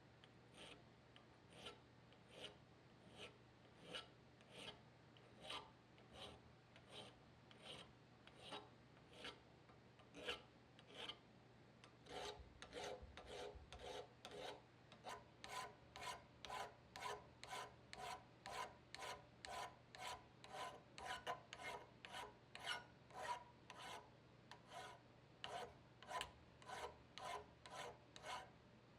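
Hand file rasping in steady back-and-forth strokes, a little over one stroke a second at first, then speeding up to about two a second from just under halfway through.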